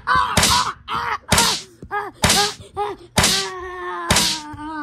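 Five sharp thwacks about a second apart, each followed at once by a child's high-pitched cry of mock pain. The last cry is held longer and slowly drops in pitch.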